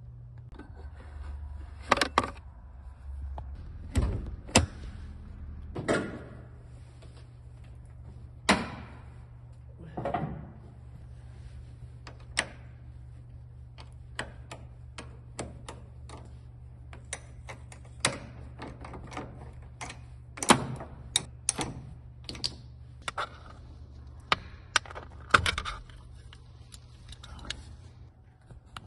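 Hands-on work on a 2011 Toyota Corolla: a string of sharp clicks, knocks and a few heavier thunks from the car's doors or hood, a wrench at the battery terminal and plastic steering-wheel trim being handled. A steady low hum runs underneath.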